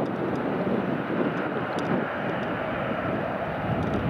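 Airbus A320's jet engines at takeoff thrust, a steady loud rushing noise as the airliner lifts off and climbs away.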